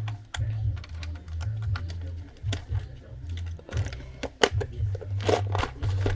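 Small sharp clicks and taps of hand tools working on the parts of a Garmin Forerunner 935 smartwatch as a component is taken off, over a low droning bass that comes and goes in blocks.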